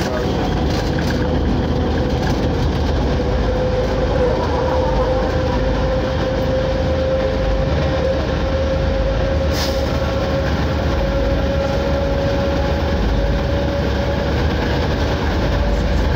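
ČSD class M262.1 diesel railcar running under way, heard from inside the passenger compartment: a steady rumble with a thin whine that rises slightly in pitch. A single sharp click comes about nine and a half seconds in.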